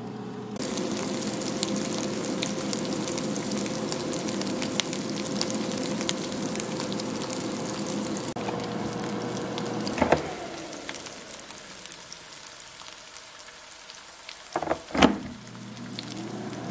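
Meat patties frying in oil in an electric skillet: a steady sizzle full of fine crackles, which dies down after about ten seconds. A sharp knock comes about ten seconds in, and two louder knocks near the end, over a steady low hum.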